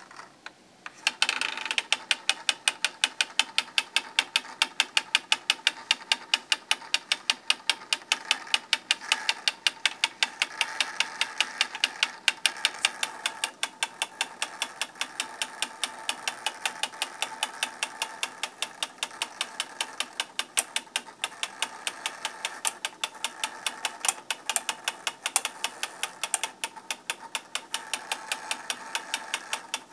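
Tascam DM-24 digital mixer's motorised faders ticking fast and evenly, about four clicks a second, over a faint steady whine, starting about a second in. The sound is the sign of the fader fault the mixer has.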